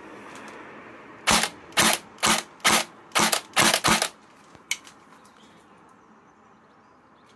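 Double Bell 813S (HK416-style) airsoft electric gun firing about seven shots in quick succession, roughly two a second, over about three seconds.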